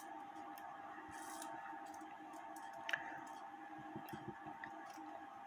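A few faint clicks from an 1880 Albert Flieg cuckoo clock movement as pressure is put on its great wheel by hand, with one sharper click about three seconds in, over a faint steady hum. The cuckoo does not trip.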